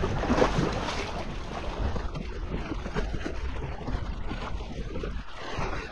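Wind buffeting the microphone over choppy water slapping against a small flat-bottom boat's hull, with the outboard motor off.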